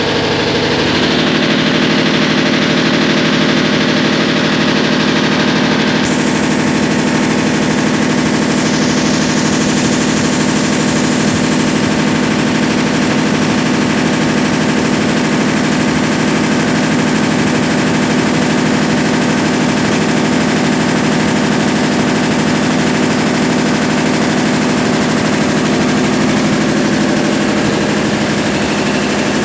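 Consul Facilite 10 kg CWC10 top-loading washing machine running, with a steady motor hum and a fast, even rattle. The sound grows fuller about a second in and again around six seconds in, then holds steady.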